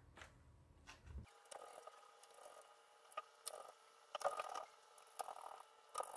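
Faint, scattered clicks and brief rustles of an Asus Eee PC netbook's plastic case being handled: turned over and pressed on by hand.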